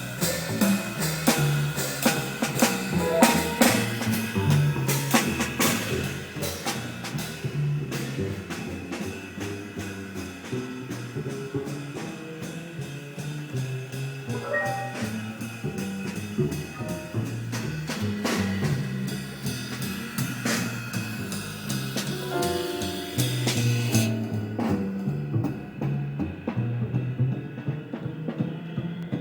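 Jazz piano trio playing: drum kit with snare, bass drum and cymbals prominent over double bass and piano. Near the end the cymbals fall away, leaving a thinner sound.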